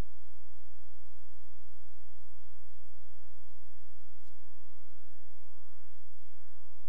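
Steady electrical mains hum with a buzzy stack of overtones, unchanging throughout, and a faint tick about four seconds in.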